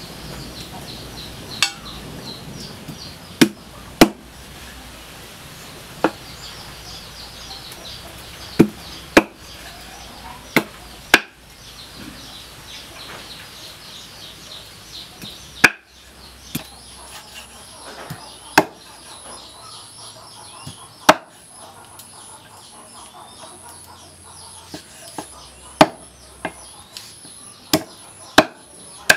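Cleaver chopping on a thick round wooden chopping board: sharp single knocks at irregular intervals, sometimes two close together, about fifteen in all.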